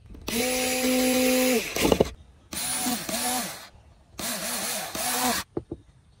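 Cordless electric screwdriver driving screws into a metal heatsink: three runs of motor whine, the pitch dipping near the end of each run as the screw seats. A few light clicks follow near the end.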